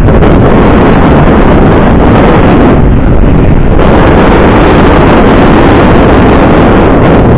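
Constant, very loud wind buffeting on the action camera's microphone from riding a 1200-watt hub-motor e-bike at speed, a steady rushing noise that drowns out everything else.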